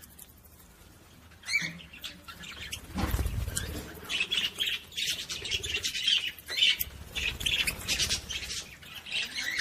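Budgerigar warbling: after a short call, a quick run of chirps, squawks and chatter starts about three seconds in and carries on. This is the chattering song of a budgie used to stir hens into breeding.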